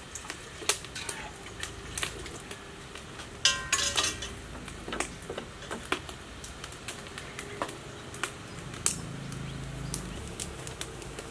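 Metal ladle knocking and scraping against a steel wok, with scattered clinks and one loud ringing clang about three and a half seconds in. Oil sizzles faintly in the wok underneath.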